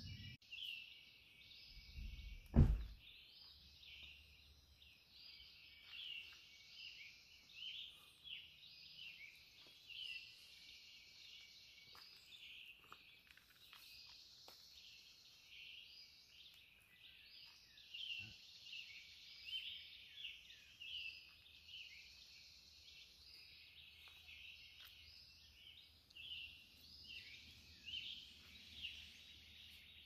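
Dawn chorus of several songbirds in woodland, with many short high chirping notes overlapping steadily throughout. A single loud thump comes about two and a half seconds in.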